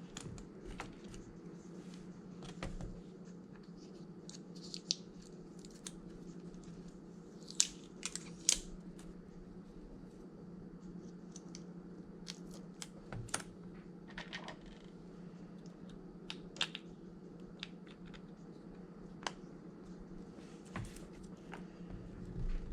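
Light, scattered clicks and taps of small tools and parts being handled during a phone repair, over a steady low hum. A few sharper clicks come in the middle.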